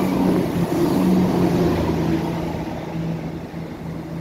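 Diesel multiple unit passing directly beneath, its engine running with a steady low hum over wheel and rail noise, loudest in the first second or two and then fading away as it moves off.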